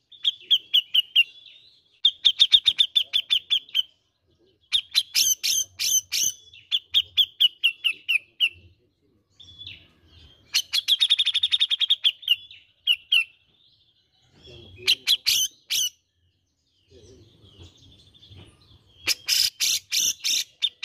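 Grey-cheeked bulbul (cucak jenggot) singing: bursts of fast, repeated chattering notes, each a second or two long, with short pauses between, seven phrases in all.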